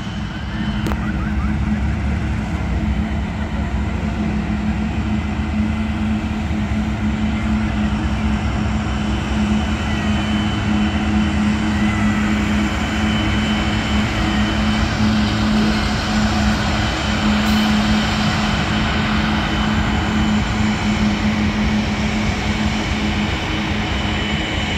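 Freight train passing with its diesel locomotives, a steady low engine drone over the heavy rumble of the train rolling on the rails. Near the end the drone fades, leaving the freight cars rolling by.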